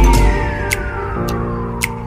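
Electronic music: a steady falling whistle-like tone over sustained low notes, with a sharp tick about once a second. A dense stretch at the start drops away about half a second in.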